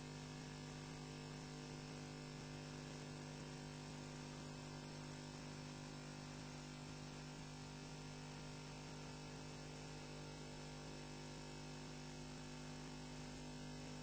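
Steady electrical hum and hiss, with a faint high whine above it, unchanging throughout; no bird calls are heard.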